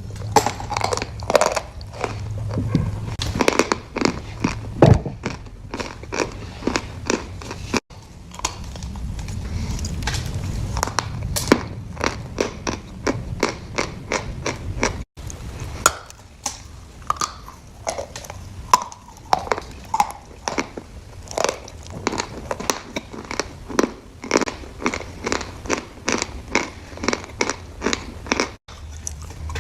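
A person biting and chewing crunchy food, a steady run of sharp crunches.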